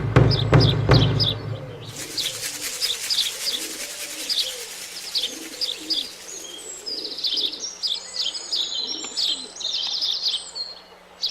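Birdsong: songbirds chirping and trilling, with a dove cooing underneath. A low hum and a few knocks sound in the first two seconds.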